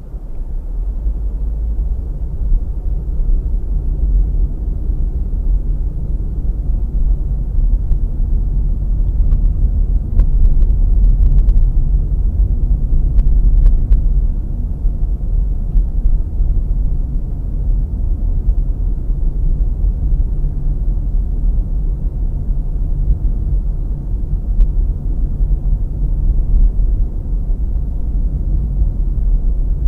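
A car driving along a country lane: a steady low rumble of engine and tyres that rises over the first second and then holds.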